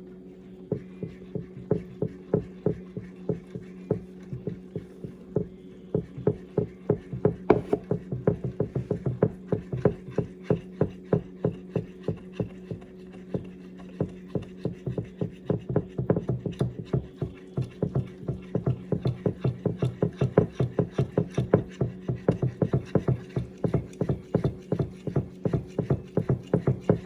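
Electric mixer motor running steadily while kneading bread dough, with a regular knocking about two to three times a second as the dough slaps around the bowl.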